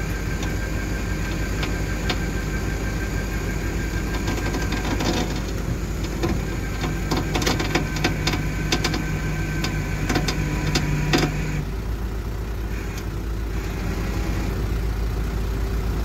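Diesel truck engine running steadily while a winch drags a stuck Isuzu NPR box truck forward over crushed rock, with crunching and clicking from about five to eleven seconds in. A low hum joins partway through and cuts off suddenly about twelve seconds in.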